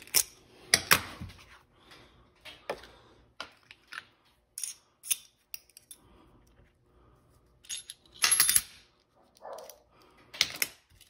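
Small metal clicks and clinks of a broadhead being unclamped from a KME sharpener's metal clamp and the parts handled and set down on the bench. The loudest is a short, ringing metal clatter about eight seconds in.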